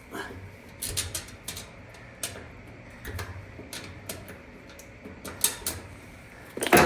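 Irregular metallic clicks and taps of screws and a screwdriver on the dryer's sheet-metal housing as a new lid switch is screwed back in place, with a louder ringing metal knock near the end.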